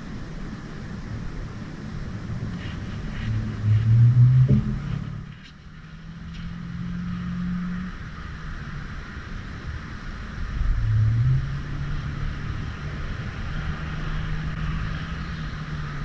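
A motor engine running, its pitch rising sharply about four seconds in and again near eleven seconds, then holding steady. It is loudest at each rise.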